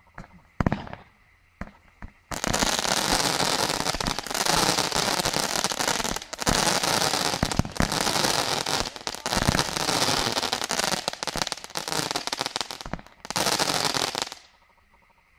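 Fireworks: a few separate bangs in the first two seconds, then about twelve seconds of dense crackling, many small pops at once, as columns of crackling sparks shoot up. It cuts off suddenly near the end.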